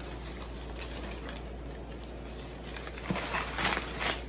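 Newspaper wrapping crinkling and rustling as it is pulled off a potted plant, with a few light rustles at first and louder bursts of crinkling in the last second or so.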